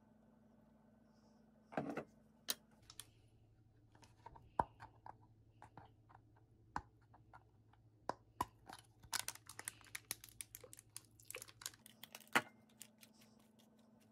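Scattered clicks and plastic crinkling as a soft squeezable lemon juice pack is handled and squeezed, busiest in the second half, over a faint steady low hum.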